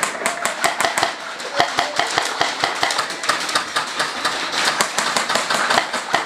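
Airsoft guns firing in an indoor arena: a dense, irregular run of sharp snapping shots, several a second and overlapping.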